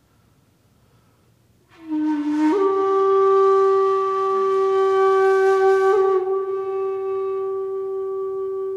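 Background flute music: after a near-silent first second and a half, a breathy flute note enters, steps up slightly in pitch, and is held as one long steady tone.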